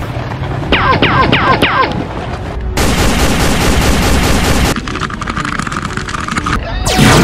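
Sci-fi laser-gun sound effects: about five quick falling zaps, then a rapid-fire burst lasting about two seconds, and a falling whoosh near the end.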